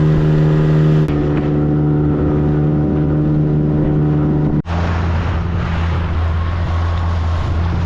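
Small boat's motor running steadily under way. About halfway through it changes abruptly to a lower, deeper drone with more hiss of wind and water over it.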